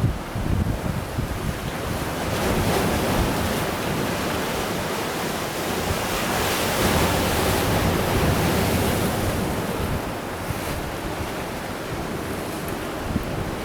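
Sea of Japan surf washing against the shore in a steady rush that swells and eases, with wind buffeting the microphone.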